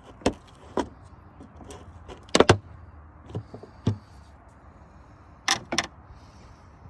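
Plastic retaining clips being prised out with a flat screwdriver: a string of sharp clicks and snaps. The loudest pair comes about two and a half seconds in, and another pair comes near the end.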